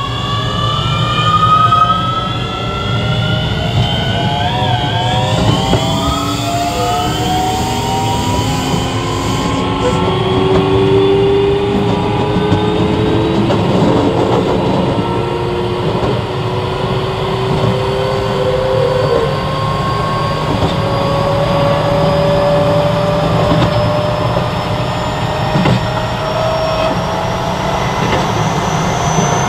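Keio 7000-series electric train accelerating, heard from on board: the traction motor whine climbs steadily in pitch, several tones rising together over a steady low running rumble, with a brief wobble in pitch about five seconds in.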